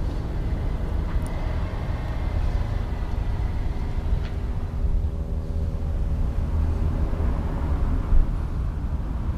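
Heavy diesel logging-truck engine idling steadily with a deep rumble, with a short louder knock about eight seconds in.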